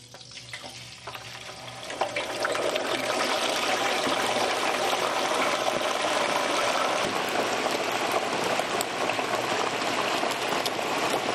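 Hot peanut oil sizzling and crackling as a whole turkey is lowered slowly into an electric indoor turkey fryer. The sizzle builds over the first two seconds, then holds steady.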